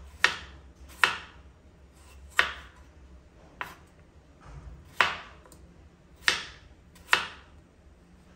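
Kitchen knife slicing a peeled potato into thin rounds on a wooden cutting board. Each cut ends in a sharp knock of the blade on the board, about seven of them, roughly one a second and unevenly spaced.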